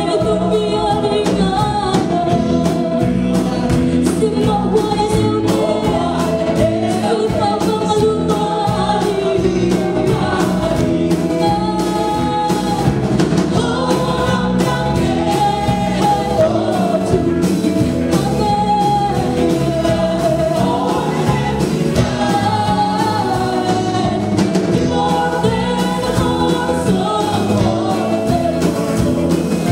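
Live gospel praise band playing: a lead singer and backing vocalists singing a worship song over electric and acoustic guitars, keyboard and a drum kit keeping a steady beat.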